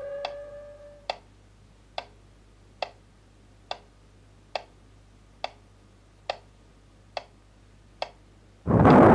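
The tail of an air-raid siren fades out in the first second. Then a radio metronome ticks steadily about once every 0.9 s, some 70 beats a minute: the air-raid signal of besieged Leningrad. Near the end, a sudden loud blast of an explosion cuts in.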